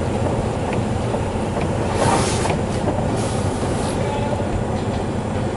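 Semi truck's diesel engine idling steadily, heard from inside the cab, with two short bursts of hissing about two and three seconds in.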